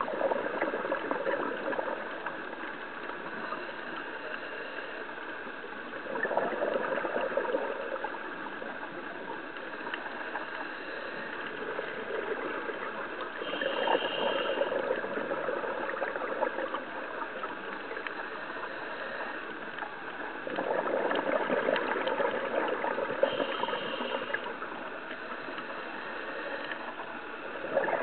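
Scuba diver breathing through a regulator underwater: bursts of exhaled bubbles gurgling about every six to seven seconds, with a quieter steady hiss between breaths.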